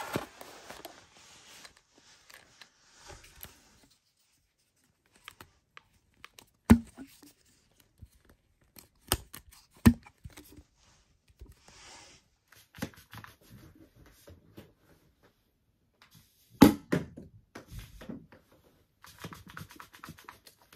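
Plastic air-pump toy ball blaster being handled, pumped and fired: scattered plastic clicks and rattles, short hisses of air, and four sharp knocks spread across the stretch.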